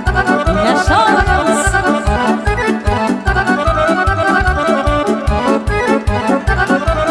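Instrumental break of Romanian party music: an accordion plays a fast melody over a quick, steady dance beat with bass and drums.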